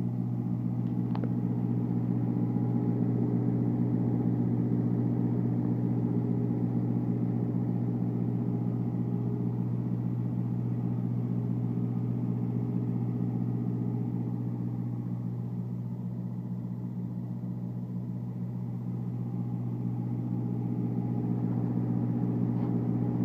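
Carrier Vector 1800 trailer refrigeration unit running steadily with a constant diesel-engine hum, in cooling mode, pulling the trailer down towards a -21 °C setpoint.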